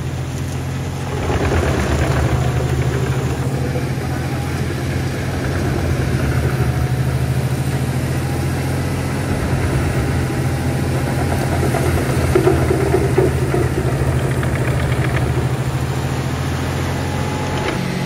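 Big Fendt tractor's engine running at a steady speed, driving a wood chipper, with the chipper running.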